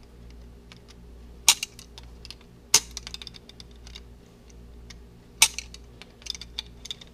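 Sharp metallic clicks and ticks of a hand tool working the stub of a broken seat clamp bolt as it is turned out of the frame, with three loud clicks spread through and lighter ticks between them.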